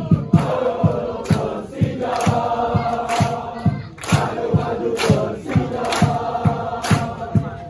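Large crowd of football supporters chanting a song in unison, over a steady low thumping beat with sharp claps about once a second.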